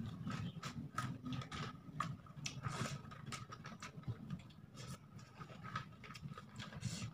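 Eating by hand: soft, irregular crackles and ticks of a brown paper food wrapper being pushed about as rice is scooped from it, with mouth sounds of chewing.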